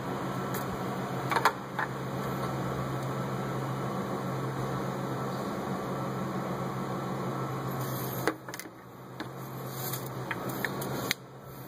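Steady low machine hum that drops away about eight seconds in, builds back up, and drops again near the end.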